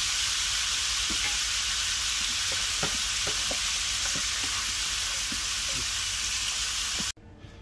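Chopped onions, bell peppers and carrots sizzling as they brown in a cast-iron skillet, stirred with a wooden spoon that knocks against the pan a few times. The sizzle cuts off suddenly near the end.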